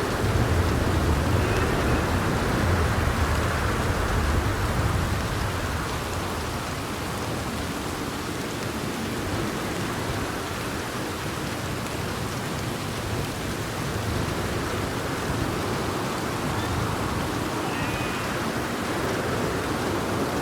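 Steady rain falling, with a low rumble of thunder in the first few seconds that fades away.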